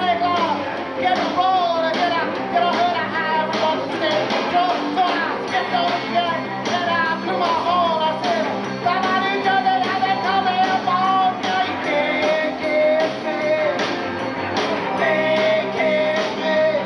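Live rock band playing, with electric guitar and a wavering lead melody held in long notes over it.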